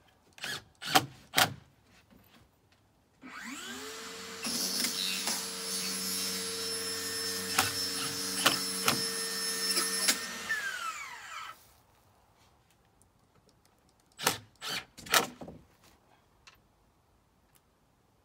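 A power tool's motor spins up, runs steadily for about seven seconds with a harsh cutting or grinding noise, then winds down. A few sharp knocks come before it and again after it.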